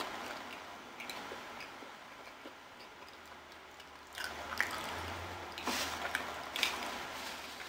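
A person chewing food at close range, with small wet clicks and crackles; quieter at first, with a busier run of chewing noises from about four seconds in.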